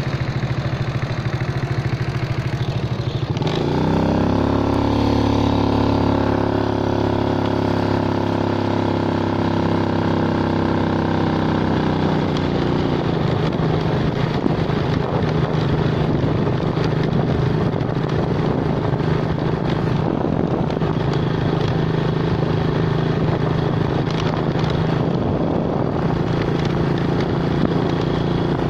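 A motor vehicle's engine running while travelling along a road: its pitch rises about three and a half seconds in as it speeds up, holds higher until about twelve seconds in, then drops back to a steady lower note, with wind and road noise underneath.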